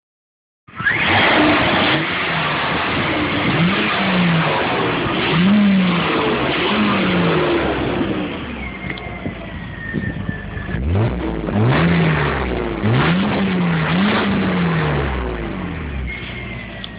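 Mercedes-Benz W202 C280's engine through its stock exhaust, revved up and let fall back repeatedly in quick blips: about three in a row, a pause at idle, then about three more.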